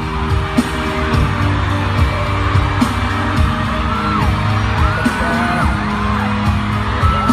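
Pop-style background music with a steady beat and gliding pitched tones over it.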